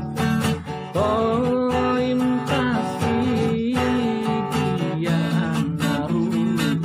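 Music from a demo song: a steady, rhythmic accompaniment with a wavering melody line above it from about a second in.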